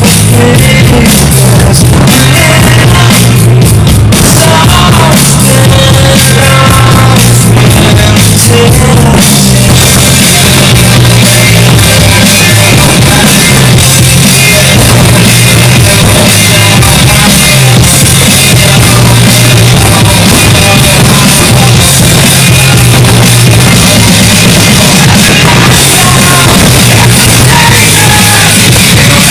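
Loud music with singing and drums, continuous throughout.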